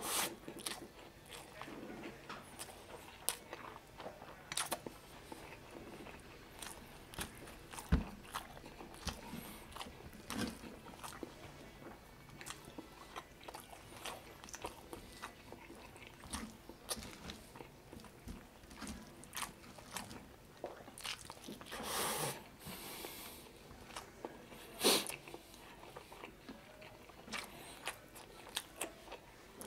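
Close mouth sounds of a person eating chicken adobo and rice by hand: steady chewing and biting with many small wet clicks and crunches. A few sharper, louder clicks stand out, and there is a louder noisy stretch of chewing about two-thirds of the way through.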